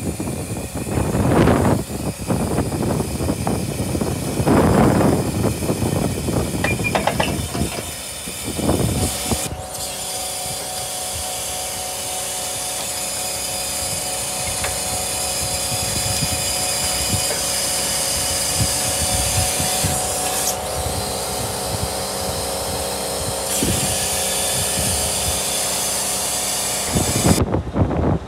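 Truck-mounted HIAB crane's hydraulics running while the rear stabiliser leg is worked: a steady mechanical whine over a hum that starts about ten seconds in and holds even. Before it come a few loud rushes of noise.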